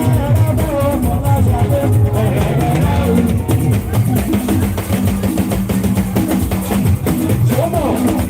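Loud music with drums playing continuously.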